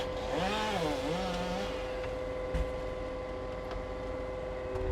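Engine of heavy machinery running at a steady speed, with a rising-and-falling pitched sound over the first second and a half and a single knock about halfway through.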